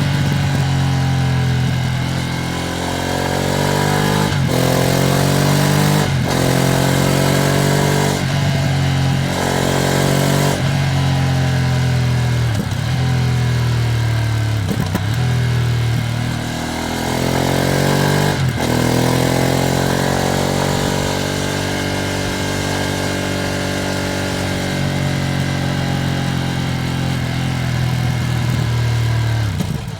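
Ducati Streetfighter V2S 90-degree V-twin accelerating through the gears, its pitch rising and then dropping sharply at each upshift, several times in quick succession, before settling into a steadier cruise in the second half. The bike is a new machine still being run in.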